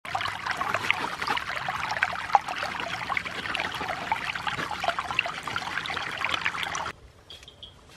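Muddy water pouring over a low grassy bank in a steady, splashing flow; the sound cuts off abruptly about seven seconds in.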